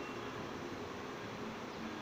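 Steady background noise of city and elevated-railway ambience, with no train at the platform and no sudden sounds.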